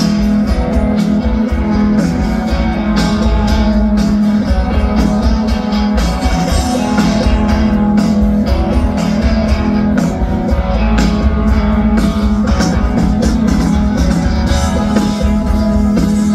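A rock band playing live through a large outdoor PA, guitar-led with bass and a steady drum beat.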